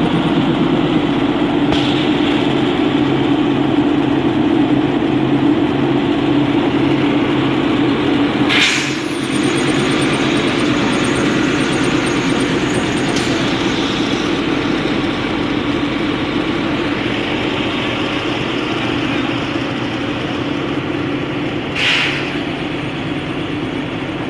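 NDM6 narrow-gauge diesel locomotive idling at a standstill: a steady engine drone, slowly growing fainter near the end. Two short hisses cut through it, about nine seconds in and again near the end.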